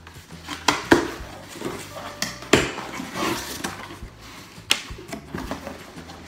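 Unboxing a plastic shower head: rustling of packaging with clacks and several sharp knocks as the parts are handled.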